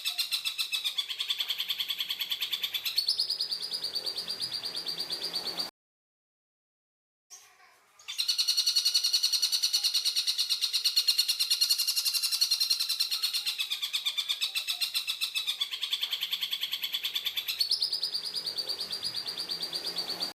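Tengkek buto calling: a harsh, dense chatter of very fast repeated notes. The chatter stops abruptly about five and a half seconds in, is silent for about two seconds, then starts again and runs on, stepping up in pitch twice.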